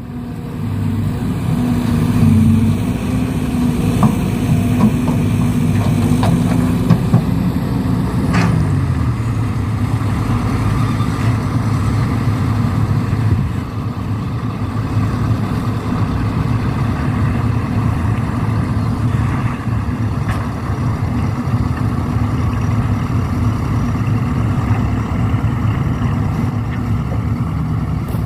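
Truck engine running steadily. Its pitch falls about eight seconds in, then holds lower, with a few light clicks before the drop.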